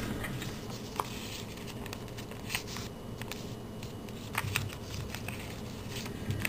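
A sheet of paper being folded and creased by hand, with faint, scattered crinkles and light clicks.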